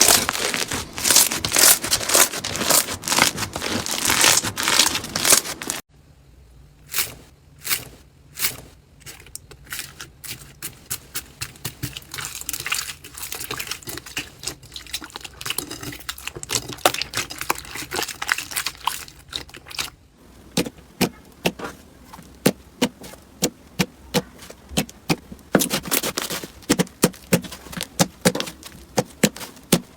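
Slime being squeezed and worked by hand, giving many sharp crackles and pops. The sound changes abruptly about six seconds in and again about twenty seconds in: dense crackling, then sparser pops, then a steadier run of clicks.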